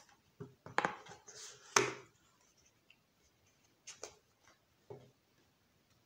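A deck of oracle cards handled at a hard tabletop: sharp knocks and taps of the cards on the table, the loudest just under two seconds in after a brief rustle of cards, then a few softer taps as the deck is set down.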